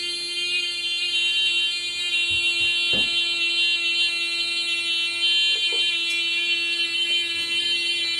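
One long vocal note held at a steady pitch, with a harsh buzzy tone, coming from a television's speakers. There is a brief knock about three seconds in.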